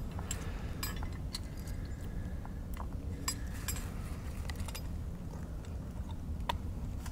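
Scattered light metallic clicks and clinks of a dog-proof raccoon trap being worked in the hands as it is armed against its strong spring, over a steady low rumble.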